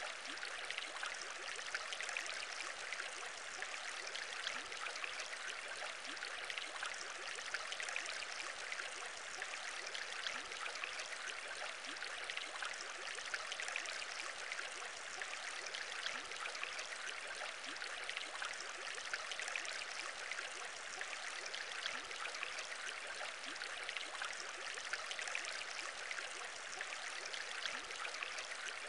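Aquarium water bubbling steadily: a dense, even stream of small bubbles popping and gurgling, with many little rising blips and no pauses.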